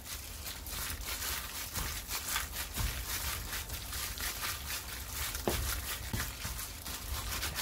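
A gloved hand kneading seasoned raw pork in a stainless steel bowl, working the doenjang and red pepper powder into the meat. The plastic glove crinkles and the wet meat squishes in quick, irregular strokes.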